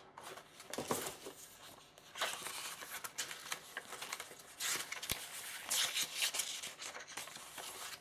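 Paper and plastic rustling and crinkling in irregular bursts: kit manuals and bagged parts being handled and compared.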